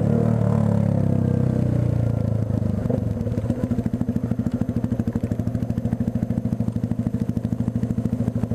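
Yamaha motorcycle engine running under the rider as the bike slows in traffic. About three seconds in it settles into idle, a rapid, even pulsing of the exhaust.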